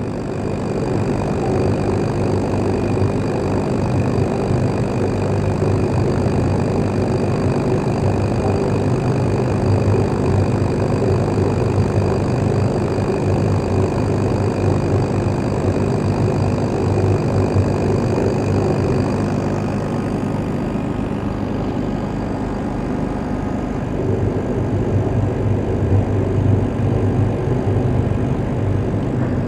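Laser cutting machine running: a steady mechanical hum with a thin high whine over it that stops about two-thirds of the way through.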